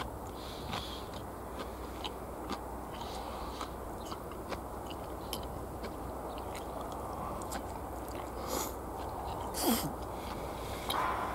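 Close-up chewing of a mouthful of katsudon, fried pork cutlet and rice, with small wet mouth clicks over a steady background hiss. A couple of louder bites or smacks come near the end.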